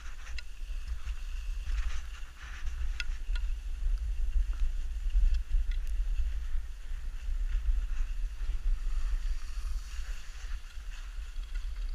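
Wind rumbling on the microphone of a skier's body-worn camera while skiing downhill, over the steady hiss and scrape of skis sliding on groomed snow, with a few sharp clicks.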